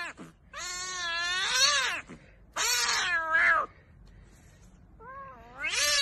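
Grey kitten meowing: the end of one meow, then three long, drawn-out meows in a row, each about a second long, with short pauses between.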